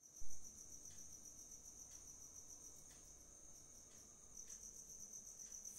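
A short thump right at the start, then faint, steady high-pitched chirping of crickets.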